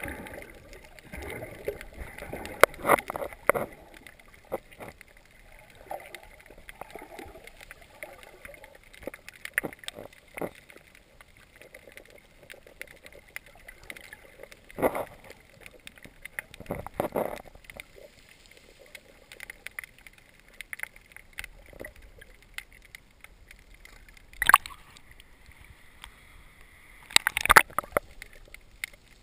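Water sloshing and gurgling around a submerged camera, heard muffled through its housing. Scattered clicks run through it, with a few short louder splashes, the loudest two near the end.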